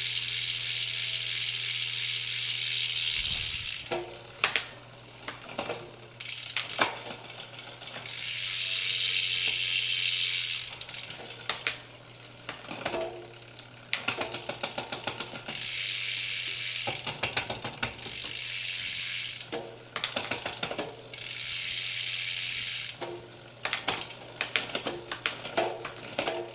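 All-City Cosmic Stallion's bicycle drivetrain turned by hand: spells of the chain running steadily over the cassette and derailleur alternate with stretches of freehub pawls ticking and sharp shift clicks. The chain keeps wanting to jump a gear, a shifting fault still there after adjusting the B-tension screw.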